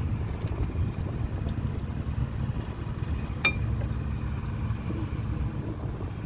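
VW Golf Mk1 running with a steady low rumble. About three and a half seconds in there is one sharp metallic click with a brief ring, and a few fainter ticks around it: the rattle the owner puts down to the brake pads.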